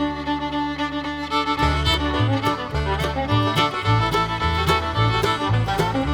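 Background music: an upbeat fiddle tune with a bass line and a steady beat.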